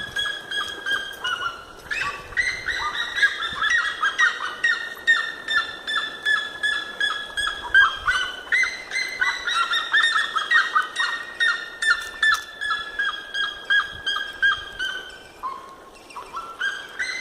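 An animal calling in long runs of rapid whistled notes, several a second, each run starting high and slowly falling in pitch. The runs restart about two and nine seconds in, with a short break near the end before the next begins.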